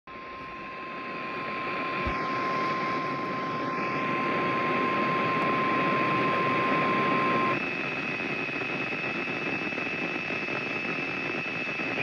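Weather radio receiving a NOAA Weather Radio warning broadcast: the steady 1050 Hz warning alert tone sounds over heavy radio static for about seven and a half seconds, then cuts off, leaving the static with a faint high whine. The tone signals that a warning message follows.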